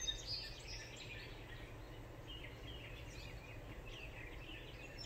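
Birds chirping and singing, many short high calls overlapping and getting busier partway through, over a steady low background rumble.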